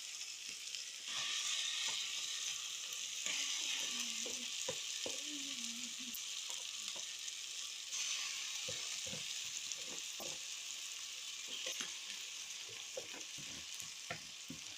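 Pounded beans sizzling as they fry in hot cooking fat with onions and tomatoes in a pan over a fire. The sizzle grows louder about a second in, and short knocks and scrapes of stirring are scattered through it.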